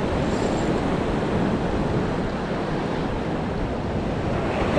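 Small breaking waves washing in and foaming at the shoreline, a steady wash of surf, with wind rumbling on the microphone.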